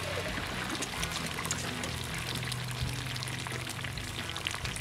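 Eggs frying in bacon grease on a hot plow-disc cooker, a sizzle with scattered crackles, under background music.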